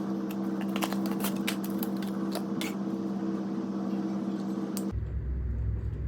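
Sharp clicks and taps of computer hardware being handled and fitted inside a desktop case, over a steady electrical hum. The hum and clicks stop suddenly about five seconds in, leaving only a low rumble.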